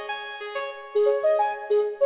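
Kurzweil KP110 keyboard played on a piano-like voice: a slow line of single held notes that ring on, louder about a second in.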